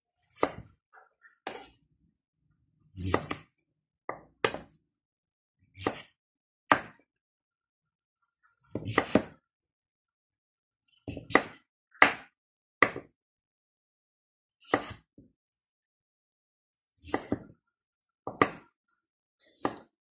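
Kitchen knife chopping through firm squash onto a wooden chopping board: about fourteen separate chops at an uneven pace, roughly one a second, some close together, with silence between.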